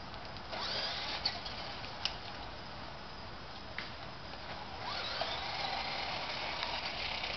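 Small electric motor of a remote-control toy car whirring in two spells, about half a second in and again from about five seconds in, the second spinning up with a rising whine. A few short clicks fall between them.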